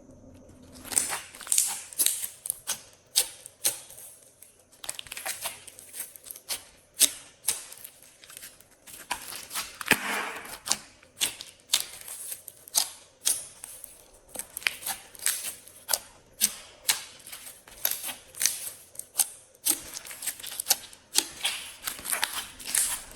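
Glossy slime being squeezed and pressed by hand, giving a steady run of sharp, wet clicks and pops that starts about a second in.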